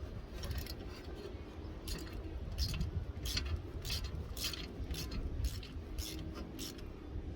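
Footsteps at a walking pace, about two a second, over a steady low rumble.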